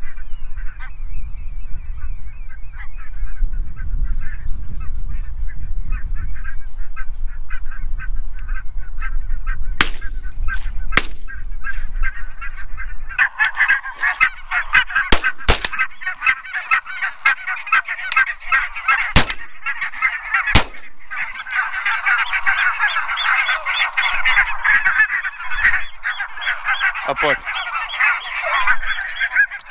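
A flock of geese honking continuously, the calling growing much louder and denser about halfway through. A low rumble lies under the first half, and a few sharp clicks are heard.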